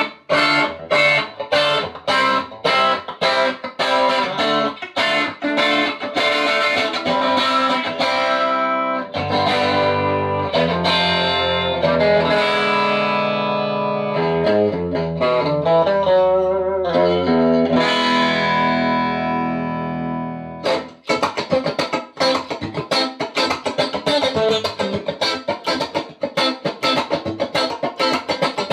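Electric guitar, a Stratocaster, played through a Fender Excelsior tube combo amp (push-pull 6V6, single 15-inch speaker). Quick picked notes give way to longer ringing notes, then after a brief break about 20 seconds in, fast dense picking resumes.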